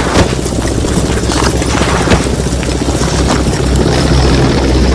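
Battle sound effect: a steady low engine drone with scattered sharp gunshots over it.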